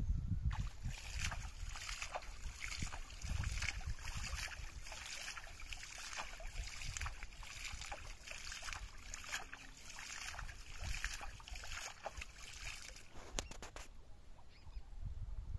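Water splashing and dripping as a cast net is pulled in and lifted out of shallow water, many quick irregular splashes that stop shortly before the end.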